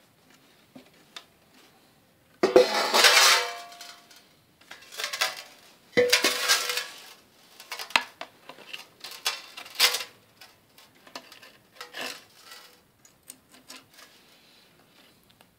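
A wire-bound clay pot in a metal pan clattering and clinking as its binding wire is cut and pulled away: two louder scraping clatters, about two and a half and six seconds in, the second leaving a short ring, among lighter clicks and knocks.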